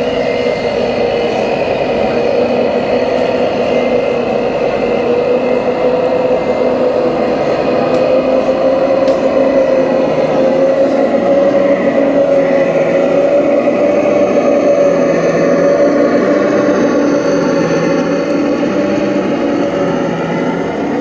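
Radio-controlled model road-train truck running along the track: a steady mechanical whine that rises slightly in pitch about halfway through, over a lower pulsing hum.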